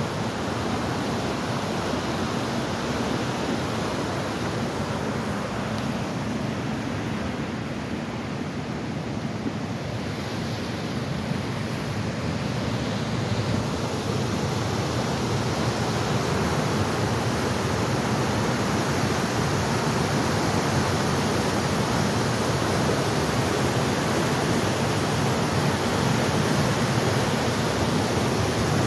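River rapids and a small waterfall: white water rushing steadily, growing a little louder about halfway through.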